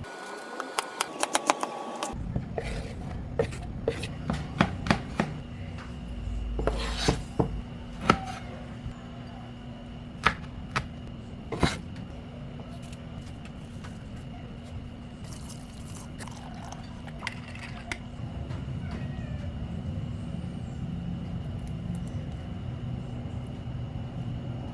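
Kitchen utensils and dishes clinking and knocking, many quick sharp hits in the first dozen seconds then only a few, over a steady background hum.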